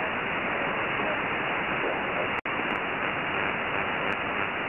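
Shortwave radio static: the steady hiss of an HF receiver tuned to the HFGCS frequency near 8992 kHz, with no message being sent. It cuts out for an instant a little past halfway.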